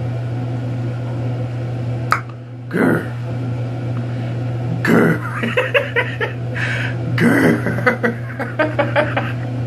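A man laughing and making breathy, wordless vocal reactions in short bursts, mostly in the second half, over a steady low hum.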